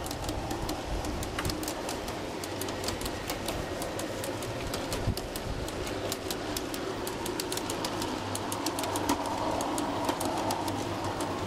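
G scale model freight cars with steel wheels rolling steadily past on the track: a continuous rolling rumble with many quick, irregular clicks as the wheels cross the rail joints.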